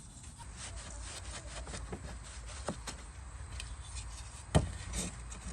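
A cloth rubbing polish onto an old chrome door-handle bezel: a steady scratchy rubbing with small clicks, and one sharp knock about four and a half seconds in.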